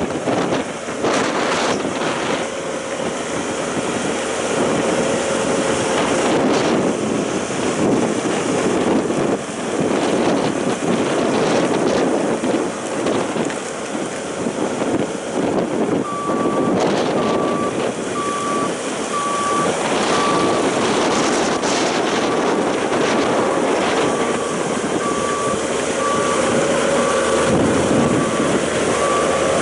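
Bobcat T770 skid steer's diesel engine running under load while the machine works, with a reversing alarm beeping steadily, about one and a half beeps a second, from about halfway through.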